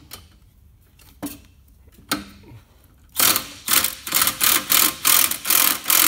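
Cordless impact driver hammering on a lawn mower blade bolt, starting about three seconds in and running in short repeated bursts, about three a second. A couple of light clicks come first as the socket goes on. The bolt is stubborn and only slowly coming undone.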